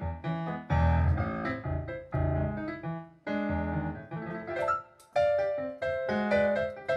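Acoustic piano playing a chacarera, with quick struck chords and strong low notes in a jazz arrangement.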